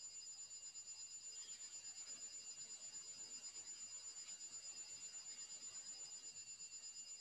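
Quiet room tone: a faint, steady, high-pitched electronic whine of a few held tones over light hiss.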